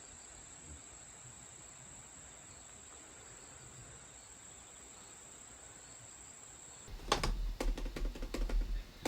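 Faint, steady high-pitched chirring of insects such as crickets, which cuts off abruptly about seven seconds in. A stretch of louder knocks and a low rumble follows.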